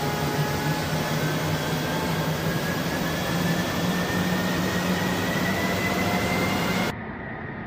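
F-35A Lightning II's Pratt & Whitney F135 jet engine running close by: a loud steady rush with a low hum and a whine slowly rising in pitch. Near the end the sound drops suddenly to a quieter, duller jet rumble.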